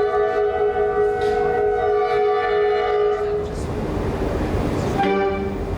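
A school concert ensemble holds a loud sustained final chord that cuts off about three seconds in, and audience applause follows.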